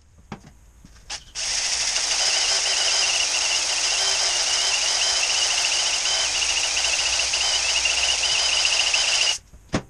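Drill spinning a flex hone inside a glazed cylinder liner of an Isuzu 4BD2T diesel block, honing to restore the cross-hatch. After a couple of short blips, it runs as a steady whine and scrubbing for about eight seconds, then stops suddenly, with a click just after.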